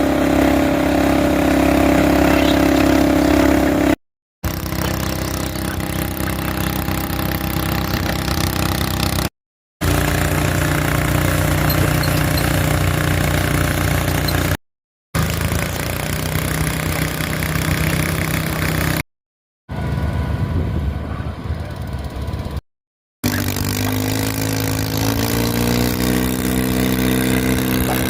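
Small lawn mower engines running steadily in a series of short clips, each cut off abruptly. In the last clip an engine's pitch rises as it speeds up.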